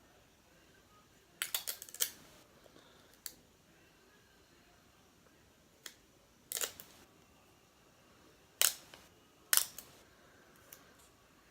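Scattered sharp clicks and taps of small hard objects being handled on a workbench: a quick cluster of several early, then single and paired clicks every second or two.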